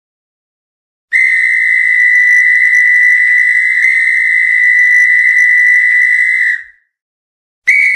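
Referee's whistle blown in one long, steady, shrill blast of about five and a half seconds, then a short blast at the very end.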